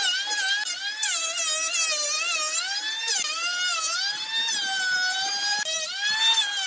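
Electric hand planer running under load, a high motor whine that keeps sagging in pitch and rising again as the blades bite into the wood and free up on each stroke.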